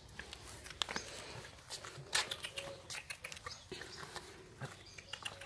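Scattered light clicks and taps as a young puppy mouths a small can and steps about on paving stones, the sharpest tap about two seconds in.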